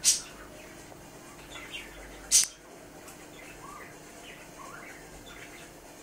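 Budgerigar making soft chirps and warbling chatter throughout. Two short, loud, sharp sounds stand out, one right at the start and one about two and a half seconds in.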